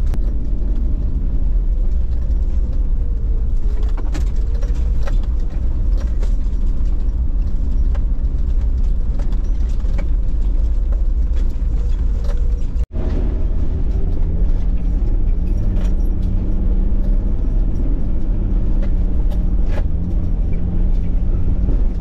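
Toyota LandCruiser Troop Carrier driving along a rutted dirt track: a steady engine drone and tyre rumble, with scattered knocks and rattles as it rides over the ruts. The sound cuts out for an instant about halfway through.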